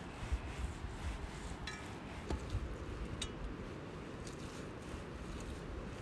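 Large knife slicing cooked doner meat off a skewer: soft cutting and rubbing noises, with three sharp metallic clicks between about one and a half and three seconds in, the last one ringing briefly. Low wind rumble on the microphone underneath.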